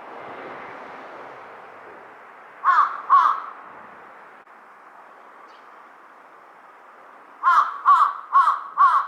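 Large-billed crow cawing: two harsh caws about a third of the way in, then a run of four evenly spaced caws near the end.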